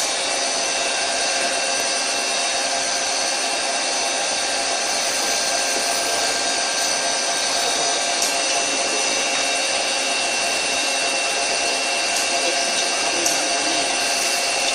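Doosan CNC lathe running steadily, its spindle turning the workpiece in the chuck while the tool, fed in by the manual handwheel, cuts the outside diameter, with a steady whine of several high tones.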